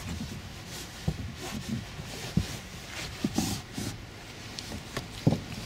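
Scattered low thumps and knocks with short bouts of rustling as a car's rear seat bottom cushion is pulled up and handled; the loudest thump comes near the end.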